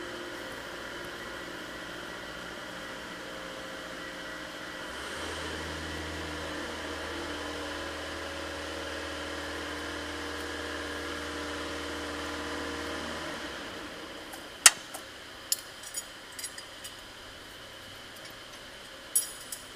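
Forklift's hydraulic pump motor running with a steady hum, getting louder about five seconds in and stopping about thirteen seconds in. A few sharp metallic clinks follow, the loudest soon after the hum stops, as the fittings are worked by hand.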